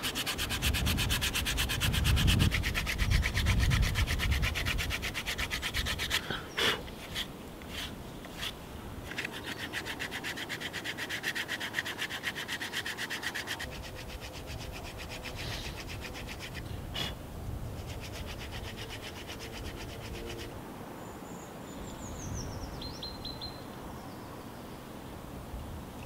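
Sandpaper wrapped around a small stick is rubbed back and forth along the carved grooves of a freshly cut green hazel thumb stick, smoothing out the knife marks. Quick rasping strokes, heaviest in the first six seconds, pause for a few knocks around the middle, start again, then fade. A few short high chirps come near the end.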